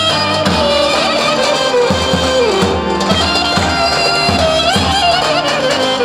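Loud Roman havası (Turkish Romani dance music): a wavering lead melody that slides between notes, over a steady drum beat.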